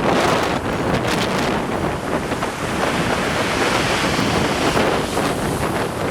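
Strong wind buffeting the microphone in a loud, continuous rumble and hiss, with sea waves washing on the shore beneath it.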